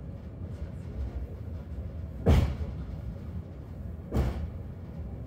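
Hakone Tozan cable car running downhill on its rails with a steady low rumble, broken by two heavy knocks about two seconds apart, the first the louder.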